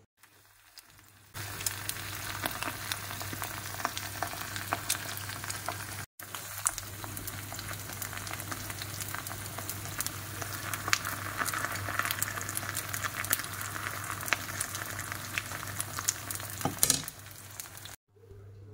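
Food frying in hot oil in a pan: a dense sizzle full of crackles and pops. It starts about a second in, drops out for an instant near six seconds, and stops shortly before the end.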